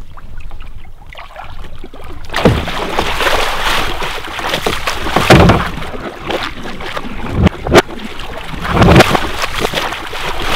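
Water splashing and sloshing against the side of a boat as a gill net is hauled in over the gunwale, starting about two seconds in, with about four heavier splashes.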